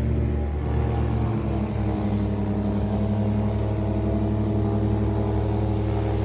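Airboat's engine and propeller running loud and steady, a droning hum; its pitch shifts slightly about a second in.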